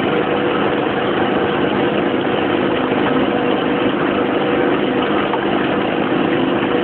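An engine running steadily at a constant pitch, with a dense hiss over its hum.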